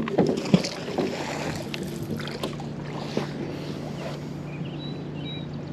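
Magnet-fishing rope being handled from a small boat: a few sharp knocks and rope noises in the first second or so, then a steady low hum with faint water and wind sounds while the magnet sinks.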